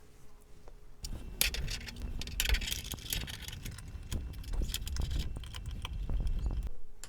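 Irregular clicking, rattling and scraping of small metal parts over a low rumble from handling, as a cable's leads are fastened to the VHF antenna screw terminals on the back of a portable TV.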